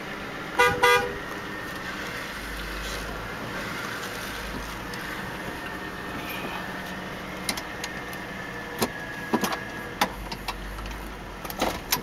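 Lincoln Town Car's horn honked twice in quick succession, about half a second in, over the steady idle of its 4.6-litre V8. A few short clicks and knocks follow later.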